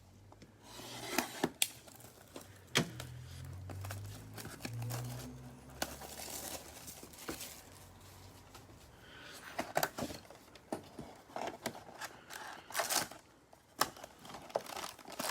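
A trading-card hobby box being opened and its card packs taken out by hand: cardboard tearing and wrappers crinkling, with sharp clicks and taps as packs are handled and set down.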